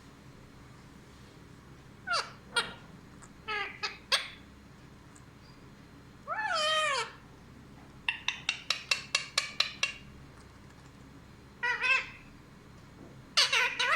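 Pet parrot calling in short squawks and whistles, with a longer wavering, meow-like call about six seconds in and a quick run of about a dozen sharp chirps a couple of seconds later.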